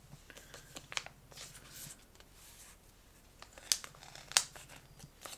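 Trading-card box packaging being handled: plastic and cardboard rustling and crinkling in short scattered bits, with two sharper clicks a little after halfway.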